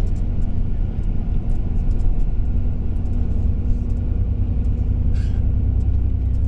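Steady low rumble of engine and road noise heard from inside a moving vehicle at highway speed, with a brief hiss about five seconds in.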